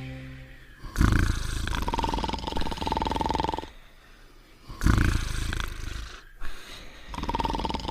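Cartoon dog's exaggerated snoring sound effect. Each snore opens with a sudden loud rasp, and some carry on into a held whistling tone. It repeats three times, about every three to four seconds.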